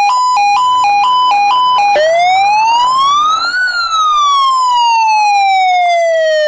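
Electronic toy siren with a buzzy chip sound. It first steps quickly back and forth between two pitches, then about two seconds in switches to a slow wail that rises for over a second, falls for nearly three, and starts rising again at the end.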